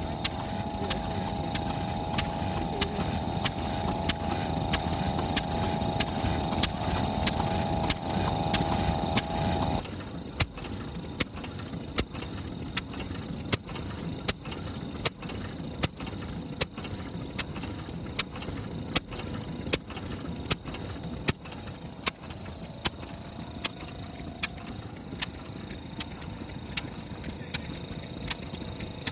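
Large Kubota FF-type 10 hp stationary engine running slowly and evenly, each firing a sharp knock about once a second, steady now that a new spark plug has cured its misfire. For the first third a louder machine whine runs underneath and cuts off suddenly.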